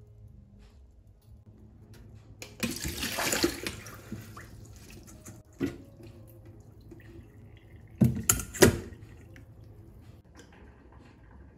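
Water rushing and splashing as soaked glutinous rice is rinsed and drained in a metal mesh strainer over a stainless steel bowl in a sink. There is one longer pour about two and a half seconds in, a short splash, then two sharp, loud knocks about eight seconds in.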